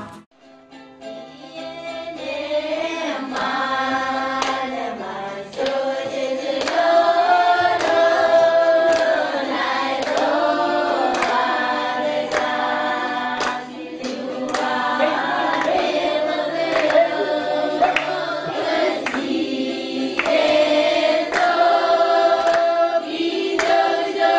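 A group of voices singing together in a choir, with a steady beat of sharp percussive strikes. It starts quietly and swells over the first couple of seconds.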